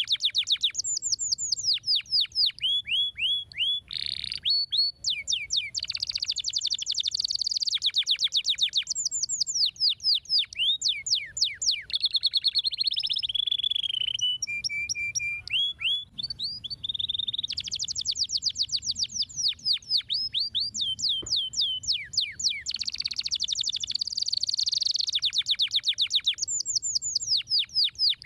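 Domestic canary singing: a continuous song of fast trills, each a rapid run of the same sweeping chirp repeated many times a second, switching to a new trill every second or two. About halfway through it drops briefly to a lower, steadier repeated note.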